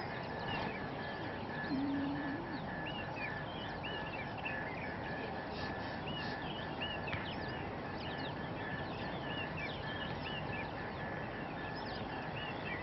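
Outdoor wild ambience: many small birds chirping in short rising-and-falling calls over a steady hiss, with a high note repeating evenly throughout and a brief low tone about two seconds in.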